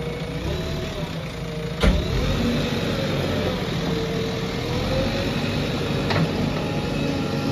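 JCB 3DX backhoe loader's diesel engine running under working load, its pitch rising and falling as the front bucket works the gravel. A sharp metallic clank comes about two seconds in, and a lighter knock near the end.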